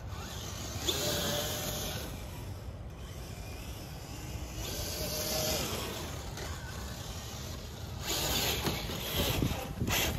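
Traxxas TRX4 crawler's Castle 1412 3200KV brushless motor and geartrain whining in high gear, in three throttle bursts whose pitch rises and falls with speed. Wind rumbles on the microphone throughout.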